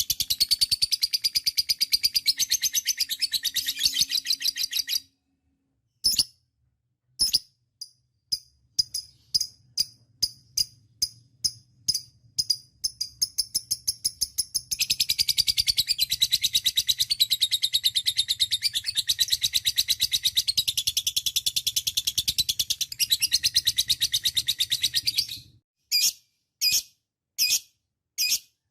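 A lovebird doing a long 'ngekek' chatter: a fast, high-pitched run of rapidly repeated notes. It breaks off after about five seconds into spaced single chirps, then resumes for about ten seconds before ending in a few separate calls.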